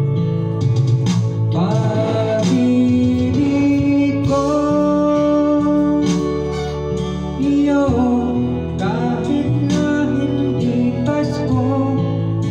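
A slow Filipino love ballad playing through a videoke machine's speakers: guitar accompaniment under a held, gliding lead melody, with no lyrics sung clearly in these seconds.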